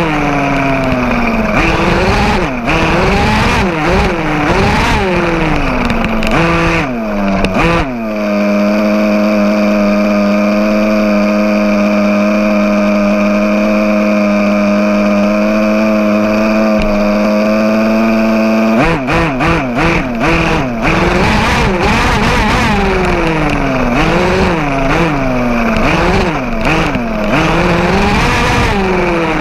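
1/5-scale RC car's small two-stroke gas engine, recorded on board, revving up and down as it is driven over rough grass, with knocks and rattles from the chassis. About eight seconds in it settles to one steady pitch for roughly ten seconds while the car sits stopped, then revs up and down again.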